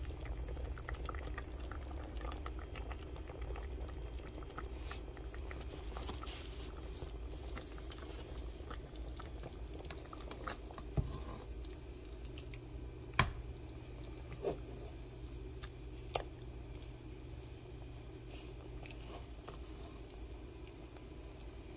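Chicken thighs simmering in gravy in a pot, with a steady low hum underneath. A few sharp knocks of a stirring spoon against the pot come about halfway through.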